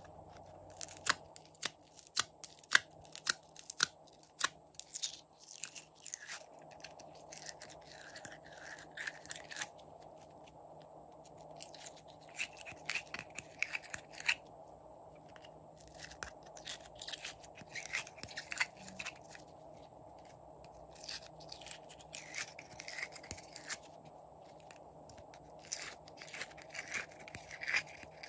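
Glitter slime being squeezed and pulled by hand out of a plastic compartment tray: a run of sticky crackles, pops and clicks, loudest and sharpest in the first few seconds.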